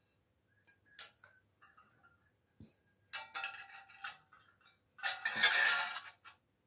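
Frosted glass wall-light shade clinking and scraping against its metal mounting clips as it is slid into place: a sharp click about a second in, a few small clinks around three seconds, and a longer, louder scrape near the end.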